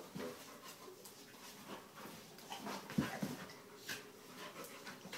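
Two dogs play-wrestling, making dog vocal sounds and scuffling against each other, with one sharp knock about three seconds in.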